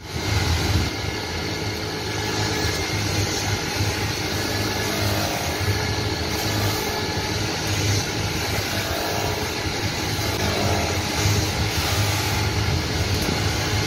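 Electric motor and belt-driven buffing wheel running steadily as steel spoons are held against the spinning wheel to polish them: a constant hum with an even hiss over it.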